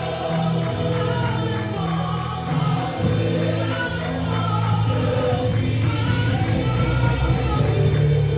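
Live gospel worship music: voices singing over a band with steady bass and drums.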